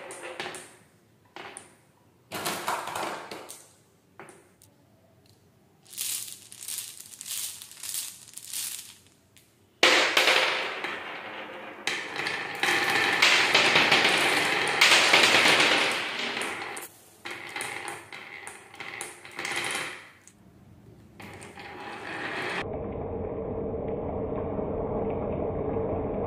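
Many marbles rolling and clacking against each other in a painted, grooved wooden marble-run track: a few separate clicks first, then a continuous clatter from about ten seconds in as the marbles run down the wavy slope. Near the end the sound turns into a steadier, duller rolling rumble.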